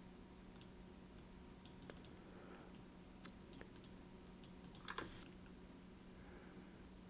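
Faint computer keyboard typing and mouse clicks, scattered and irregular, with a louder clatter of keys about five seconds in, over a low steady hum.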